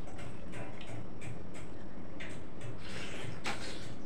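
Close-miked eating sounds of a person chewing beef-foot curry (gulai tunjang) by hand: wet chewing and lip-smacking clicks, several to the second, with a longer, louder wet sound about three seconds in as a piece of beef foot on the bone goes to the mouth.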